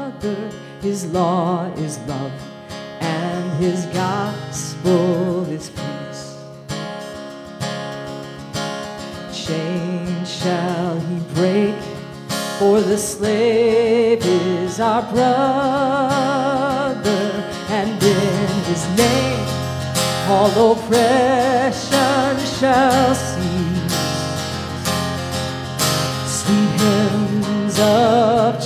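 A woman singing with vibrato and accompanying herself on a strummed acoustic guitar.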